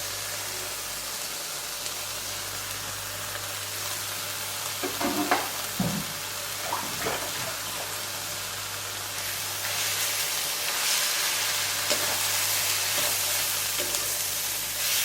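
Sliced ginger, onion and green pepper sizzling in a pan as they are stir-fried, with a few knocks and scrapes of the spatula about five to seven seconds in. The sizzle grows louder from about ten seconds in.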